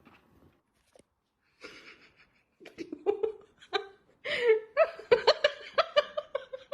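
A person laughing in quick repeated bursts, starting about two and a half seconds in and growing louder.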